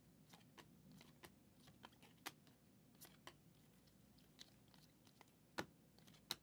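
Faint, scattered clicks and snaps of Prizm football trading cards being handled and flipped through one by one, with two sharper snaps near the end.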